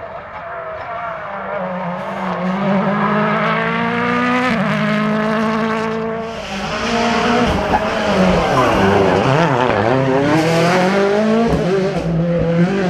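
Ford Fiesta RS WRC rally car's 1.6-litre turbocharged four-cylinder engine accelerating hard through the gears, its pitch climbing and then dropping at each upshift. In the second half the engine revs rise and fall as the car passes close, with a hiss of tyres on the road.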